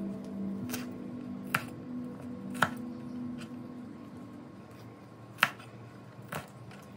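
Chinese cleaver slicing through crisp mustard green stems onto a wooden cutting board: about five sharp, crisp chops at irregular intervals. Soft ambient music underneath fades out in the first half.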